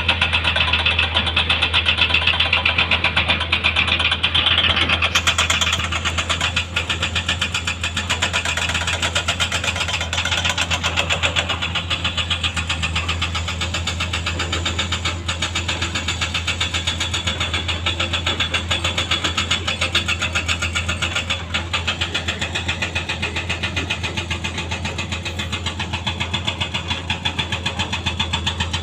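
Diesel engine of heavy earthmoving equipment running steadily, with a deep hum and a rapid, even pulse; the sound brightens a little about five seconds in.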